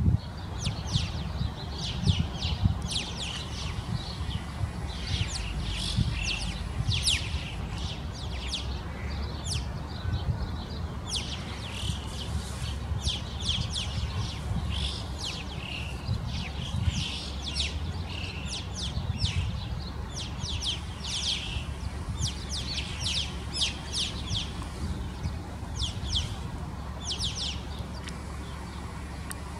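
A flock of alpine choughs calling: many short, high-pitched calls, overlapping and repeating without a break, over a low background rumble.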